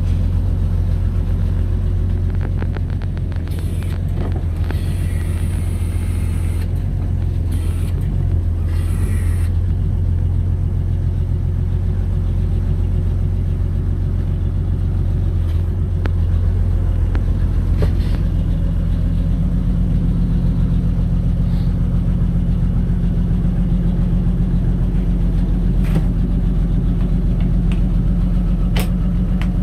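Hägglunds Bv206 D6's six-cylinder diesel engine idling steadily, a constant low drone heard from inside the cab. A few short hissing sounds come through about four to nine seconds in.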